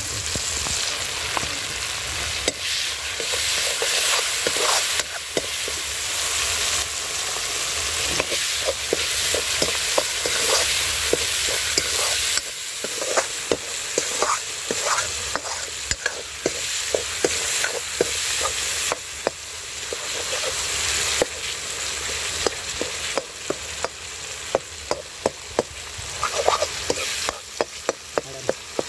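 Spice masala with tomato frying in oil in a wok, sizzling steadily, while a steel ladle stirs and scrapes it. The ladle knocks against the pan in many sharp clicks, more often in the second half.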